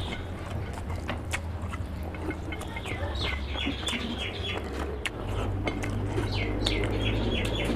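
A bird chirps in two quick runs of repeated notes, about three seconds in and again near the end. Under it are short wet clicks and smacks from fingers wiping curry off a plate and being licked, over a low steady hum.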